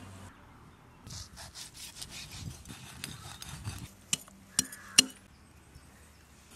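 A heavy blade scraping the skin and fins of a large seer fish: a quick run of rasping strokes, then three sharp knocks a little over four seconds in.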